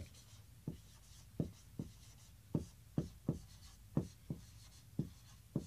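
Dry-erase marker writing on a whiteboard: a string of short, separate strokes, roughly two a second at an uneven pace.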